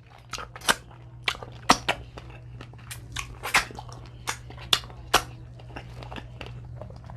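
Close-miked eating of sauced Dungeness crab: a string of sharp cracks, crunches and wet smacks, about a dozen over five seconds, over a steady low hum.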